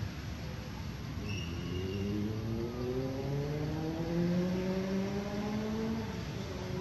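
An engine running and rising steadily in pitch for about five seconds, as when a vehicle speeds up, then dropping back in pitch near the end.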